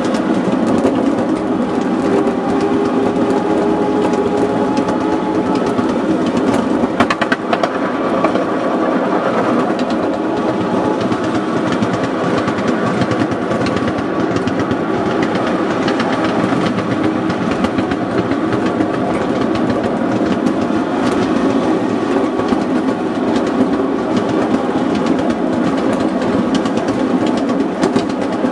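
5-inch gauge miniature locomotive running along its track, heard from on board: a steady rumble of wheels on the rails with continual clicking over the rail joints and a brief clatter about seven seconds in.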